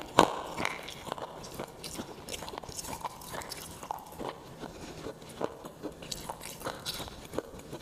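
A person chewing with the mouth closed: a quick series of small wet clicks and crunches, with a louder bite just after the start.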